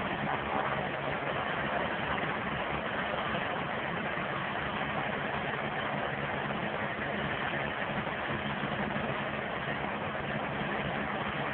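Eurocopter EC145 twin-turbine helicopter running on the ground with its main rotor turning, a steady engine and rotor noise that holds level throughout, during the ground run before takeoff.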